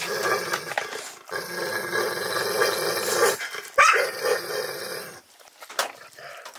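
A dog growling over its food bowl as it eats, in three long growls with a short sharp knock about four seconds in; the growling stops about five seconds in.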